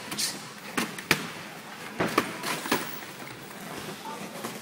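Boxing gloves landing on a sparring partner at close range: about five sharp punch impacts, in two quick pairs about one and two seconds in and one more a little later, over gym noise.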